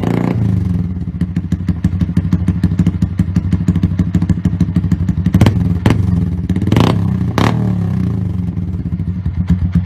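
Yamaha Sniper 150's single-cylinder four-stroke engine running steadily at idle through an aftermarket racing muffler, just after being started. A few short, sharp cracks come about halfway through.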